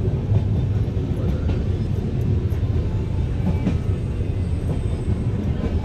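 Train running, a steady low rumble with faint scattered clicks of wheels on rail.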